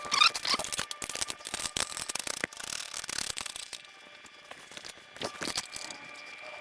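Irregular clicking and light metallic clatter of tools and parts being handled, busiest in the first three seconds and sparser after that.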